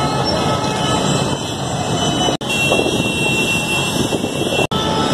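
Din of a packed market street: motorcycle and auto-rickshaw engines running in slow traffic mixed with crowd noise. The sound drops out for an instant twice.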